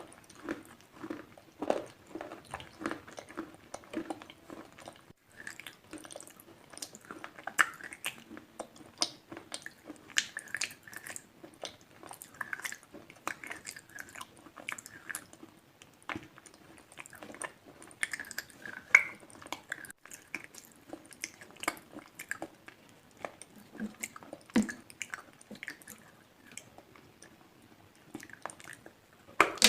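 A person biting and chewing slate pencil, making many short, sharp crunching clicks at an uneven pace.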